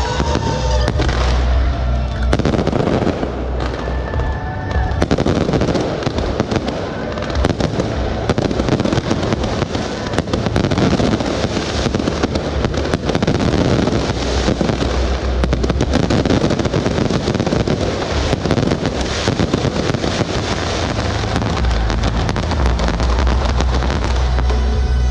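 Fireworks going off without a break: a dense, rapid run of crackling pops and bangs from shells and spark sprays.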